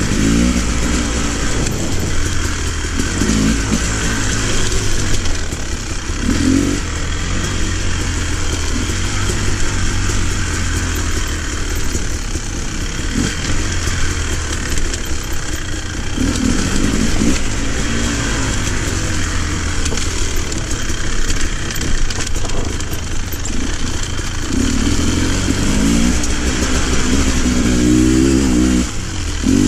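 Off-road motorcycle engine running as it rides a dirt singletrack, revving up and down every few seconds over a steady low rumble.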